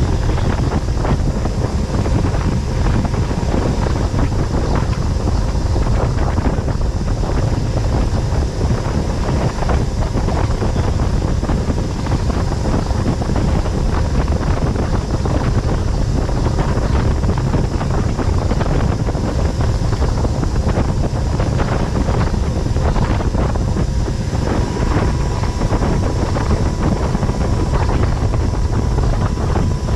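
Wind buffeting the microphone on a speeding motorboat, over the steady rush of its churning wake and the drone of its engine, with a faint steady whine.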